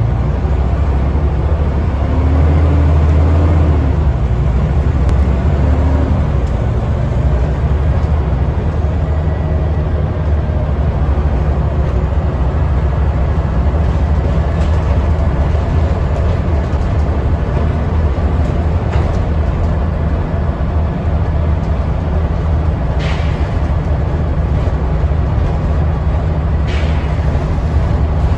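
Scania N94UD OmniDekka double-decker bus driving, heard from inside on the lower deck: a low, steady engine drone with road and rattle noise, the note rising briefly a few seconds in, and two short hisses near the end.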